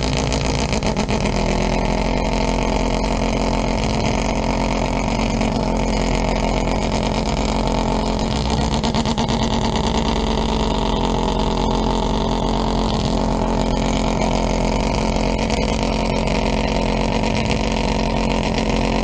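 Mazda 787B race car's four-rotor rotary engine idling steadily and loudly.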